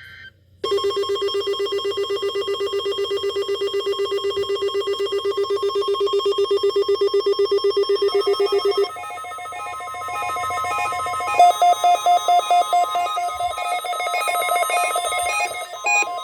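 Weather radio receiver alert alarms set off by a Required Weekly Test: about half a second in, a loud, rapid trilling alarm tone starts. Around nine seconds in it gives way to a higher, faster beeping pattern over a steady tone.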